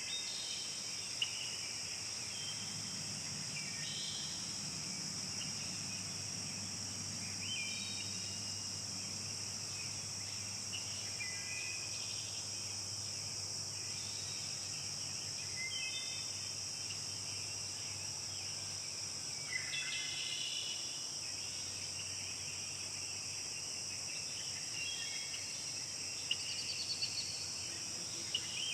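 Steady high-pitched insect chorus of crickets or similar insects, with short bird chirps dotted through it every few seconds.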